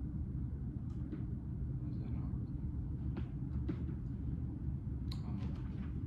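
Room tone: a steady low rumble with a few faint, scattered clicks and taps.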